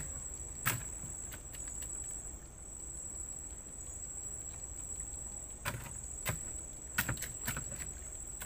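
Insects chirring in one steady, high, unbroken note, with a few sharp clicks, one about a second in and several more past the middle.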